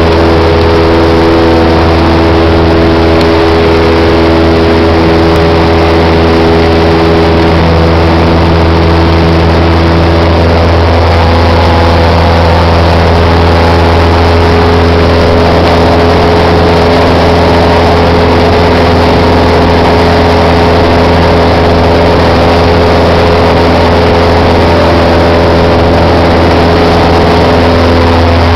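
A small single-engine high-wing airplane's engine and propeller drone, heard loud inside the cabin in cruising flight, with a haze of wind and airflow noise. The note holds steady, with a slight change in its tone about ten seconds in.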